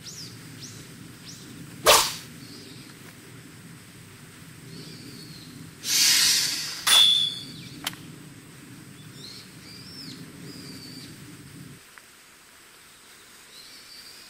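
Katana sound effects: a sharp sword swish about two seconds in, then a longer swish and a short metallic ring around six to seven seconds in as the sword is sheathed. Birds chirp faintly throughout.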